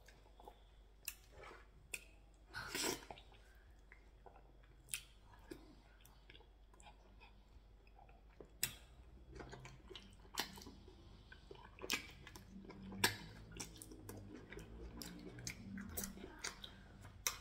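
Close-up eating sounds of a person chewing and swallowing pounded yam with ogbono soup and meat, with sharp wet mouth clicks and smacks every second or two. A low hum from the eater runs through the second half.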